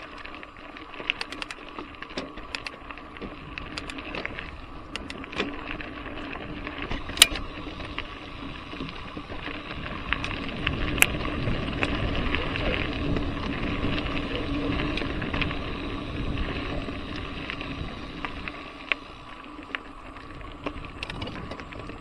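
Riding noise of a Trek Fuel EX 7 mountain bike on dirt singletrack: tyres rolling over the trail with frequent sharp clicks and rattles from the bike, and a louder rumble through the middle.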